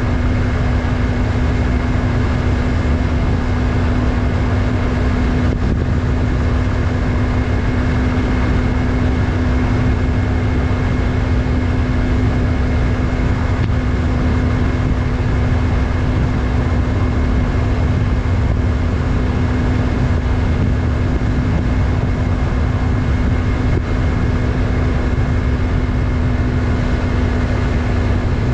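Yamaha MT-03's 321 cc parallel-twin engine running at a steady speed under way, its note holding level with no revving up or down, over a constant low rumble.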